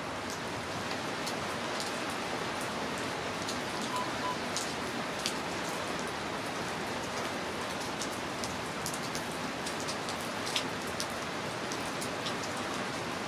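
Steady rain falling on a concrete platform and track ballast: an even hiss with scattered, sharper drip ticks.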